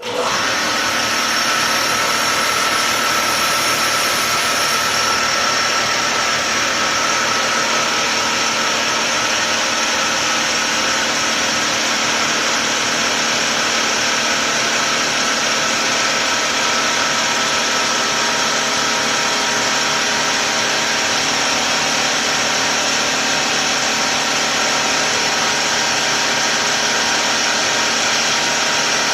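Tuxing four-stage high-pressure air compressor switching on and running steadily: an even, loud motor-and-pump drone with a steady whine. A faint high hiss on top fades out about five seconds in.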